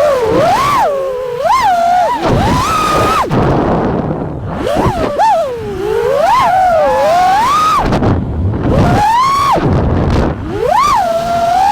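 The brushless motors and props of a 5-inch FPV freestyle quadcopter (1860 kV motors, Gemfan 51433 props) whine loudly. The pitch swoops up and down with each punch and drop of the throttle. A few times the whine falls away to a low rumble as the throttle is cut, then climbs again.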